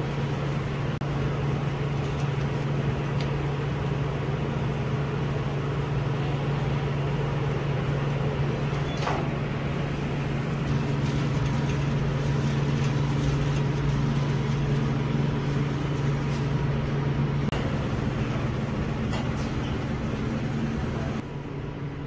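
Donuts frying in a deep fryer: a steady hiss of hot oil over a constant low machine hum, with a few light clicks. The level drops and the hiss thins near the end.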